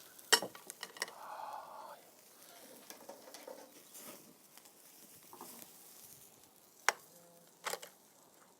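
Metal kebab skewers clinking as cooked lamb kebabs are handled on the barbecue, with sharp clinks near the start and twice near the end over faint sizzling.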